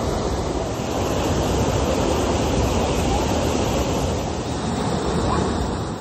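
River water rushing over a low weir: a steady, even rushing that fades away at the end.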